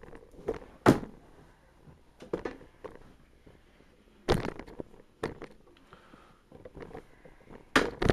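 A few sharp knocks and thumps from things and the camera being handled and moved, with smaller clicks between. The loudest knock is about a second in, another comes near the middle, and a last one comes near the end.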